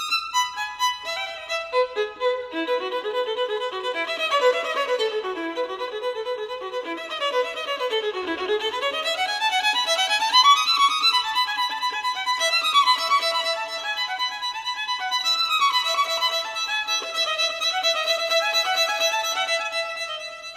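Background music of a solo violin playing quick running note passages, with a long run sweeping down and back up about eight seconds in. It starts abruptly out of silence.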